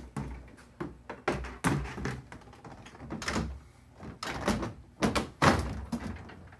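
Large plastic freezer basket of a Samsung refrigerator knocking and clattering as it is lowered into the pulled-out freezer drawer and settled onto its metal rails. The knocks are irregular, with the loudest about five seconds in.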